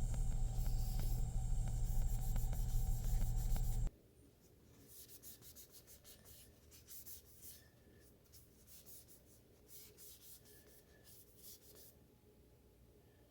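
A steady low hum that cuts off abruptly about four seconds in. Then quiet, irregular soft rubbing strokes of a rag wiping over the knife, applying a coat of boiled linseed oil.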